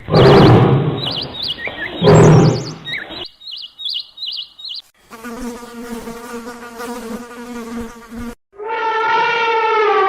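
A run of separate animal sounds: two loud, rough, noisy bursts with high chirps over them, then a steady insect-like buzz lasting about three seconds, then a drawn-out call that falls in pitch near the end.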